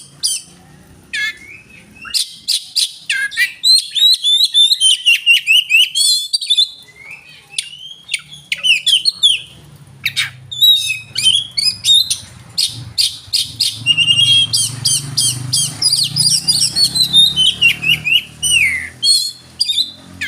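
Oriental magpie-robin (kacer) singing a long, varied song of rapid repeated notes and sliding, falling whistles, broken by short pauses, with a low hum underneath for much of it.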